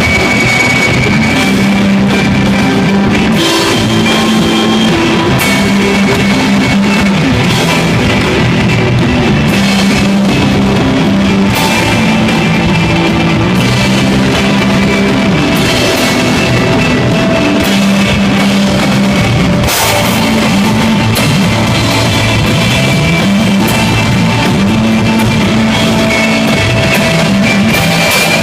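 A stoner/desert rock trio playing live: electric guitar, bass guitar and drum kit with repeated cymbal crashes, over a slowly moving bass line, all loud and continuous.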